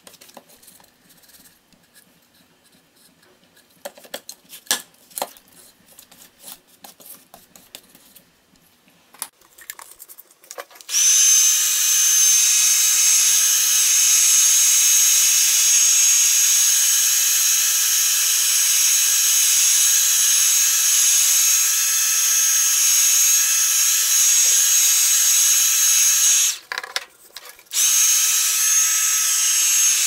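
Craft heat gun (embossing heat tool) switched on about a third of the way in, running with a steady high whine over a rush of air as it dries the matte medium on a paper collage. It cuts out for about a second near the end and comes back on. Before it starts, light taps and rustles of hands working the paper on the canvas.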